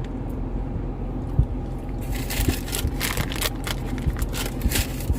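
Crinkling and crackling from about two seconds in, the sounds of food being handled or eaten, over a steady low hum.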